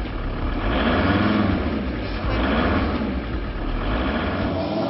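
VW bus engine revved repeatedly by pumping the accelerator, the pitch rising and falling about three times.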